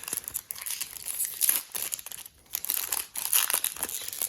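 Foil wrapper of a Yu-Gi-Oh booster pack crinkling in irregular bursts as it is handled, with a short lull a little over two seconds in.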